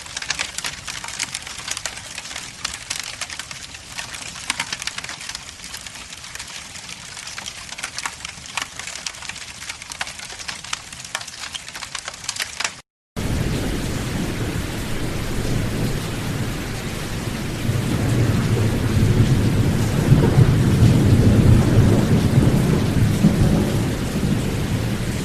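A fire crackling, with dense snaps and pops over a soft hiss, cutting off abruptly about thirteen seconds in. Then steady heavy rain, with a low rumble of thunder building and swelling in the second half.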